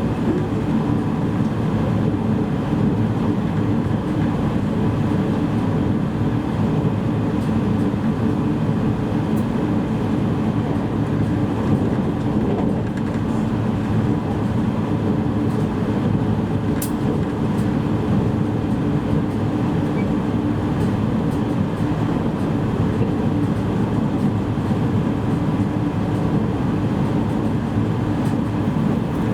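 Steady running noise of a JR East E653 series electric train, heard from inside the passenger car: a continuous low rumble.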